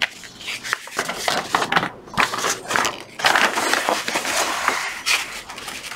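Large paper plan sheets rustling and crackling as they are handled, unfolded and smoothed flat by hand. The sound comes in irregular noisy rustles, busiest from about three seconds in.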